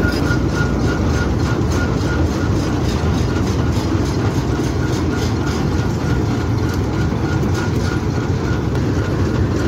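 Malkit 997 combine harvester running on its test run after repair: a steady heavy mechanical din from its engine and works, with a regular clatter of about four ticks a second.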